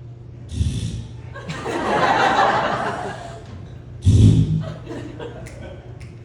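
Audience laughing and chuckling, swelling about two seconds in, with a louder short burst a little after four seconds.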